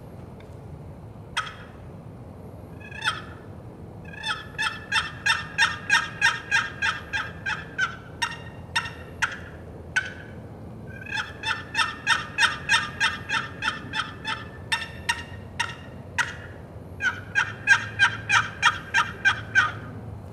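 Spanish cedar turkey box call, its paddle lid stroked across the edge of the box to make turkey yelps. A couple of single strokes come first, then three long runs of evenly paced yelps at about three a second, with a short pause between runs.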